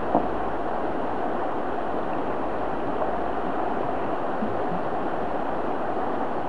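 Shallow mountain stream running steadily over rocks and riffles, with one small tap right at the start.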